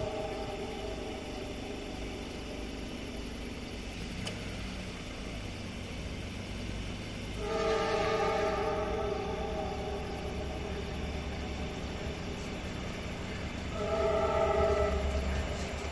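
Diesel freight locomotive's air horn sounding a chord for a grade crossing: two long blasts, about seven seconds in and again near the end, over a low engine rumble that grows as the train nears.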